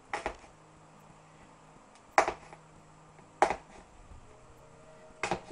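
A few sharp knocks on a cardboard box: a quick double knock just after the start, then single knocks about two, three and a half and five seconds in.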